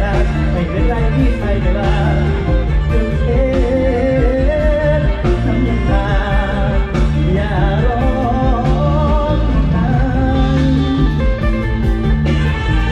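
A live band playing an upbeat Isan toei song: an electric bass plays a steady line under the drums while a voice sings a wavering melody.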